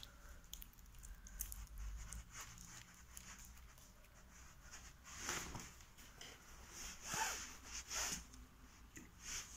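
Faint rustling and scratching of fingers working loose potting compost in a plastic plant pot, with scattered small clicks and a few short rustles in the second half.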